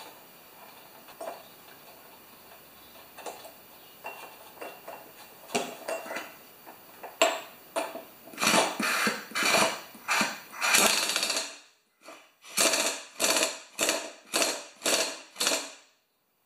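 Air impact wrench hammering in a series of short bursts, tightening the flywheel nut on a Tecumseh lawnmower engine. Light clicks of the socket being fitted come first, and the bursts start about halfway through, the last ones short and quick.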